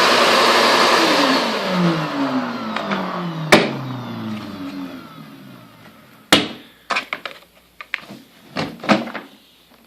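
Shop vac running, then switched off: its motor winds down with a falling whine over about four seconds. A sharp knock partway through the wind-down, then a few scattered clunks and taps near the end.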